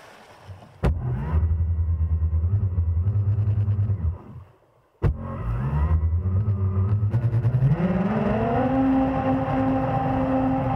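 Electric jet drive of a home-built jet kayak: the battery-powered motors and impeller run with a low pulsing hum, cut out briefly about four seconds in, then spin up with a rising whine near the eight-second mark and hold a steady pitch. Two sharp knocks sound, one about a second in and one about five seconds in.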